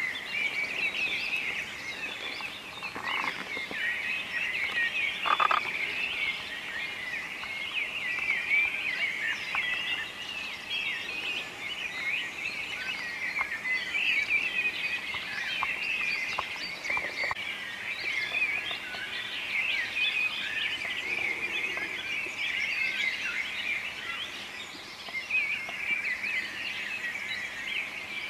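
Many small birds chirping densely and without a break, a busy chatter of short, wavering high calls.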